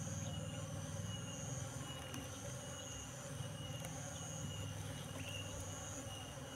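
Asian honeybees (Apis cerana) buzzing in a low, steady hum around a colony being moved from its cardboard box. Insects in the grass call behind them in high, thin trills that repeat with short breaks.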